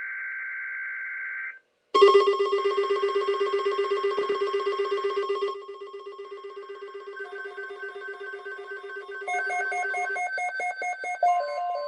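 Emergency alert tones: a steady buzzing data burst cuts off about a second and a half in, then after a short gap electronic alert alarms start, a loud rapid beeping at about seven pulses a second that drops in level about halfway through, with alternating two-note warbling tones joining near the end.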